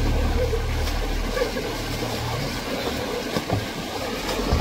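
Water splashing as men thrash and throw water at each other in a small waterfall pool, over a steady rush of water. A low rumble underneath drops away about halfway.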